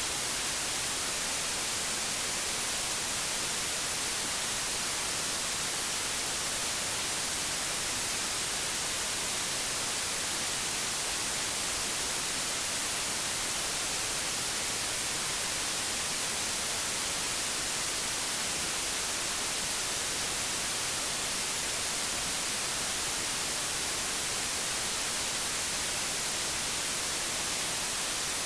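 Static from an old analog television tuned to no channel: a steady, even hiss, brightest in the treble, that does not change.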